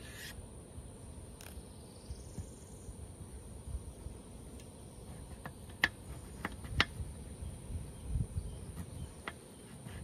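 A knife slicing a zucchini into rounds on a cutting board: a few sharp taps of the blade meeting the board about halfway through and one more near the end. Under it, a steady high-pitched insect buzz.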